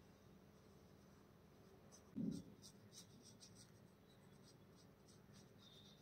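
Fine paintbrush working on watercolour paper: a run of faint, short scratchy strokes from about two seconds in. Just before them comes a soft thump, the loudest sound.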